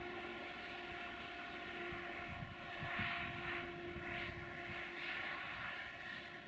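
Distant diesel-electric locomotive approaching, its engine giving a steady drone with a few short, louder rushing surges.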